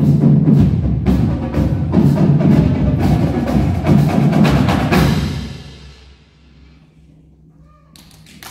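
Percussion ensemble of marimbas, other mallet instruments and drums playing loudly, with many sharp strikes over a sustained low bass. The playing stops about five seconds in and rings away, and audience applause starts near the end.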